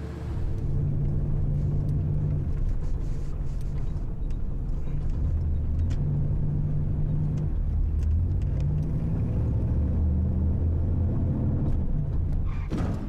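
Car engine and road noise heard from inside the cabin while driving: a steady low rumble with a hum that drifts slightly in pitch. A brief burst of noise near the end.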